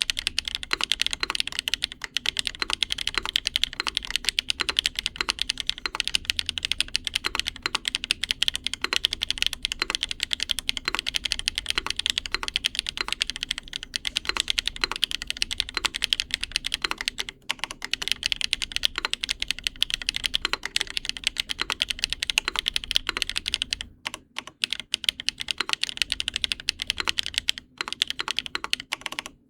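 Continuous fast typing on a mechanical keyboard fitted with HMX Hyacinth V2U linear switches on a carbon-fibre plate: a dense stream of high-pitched, clacky keystrokes, with a few brief pauses.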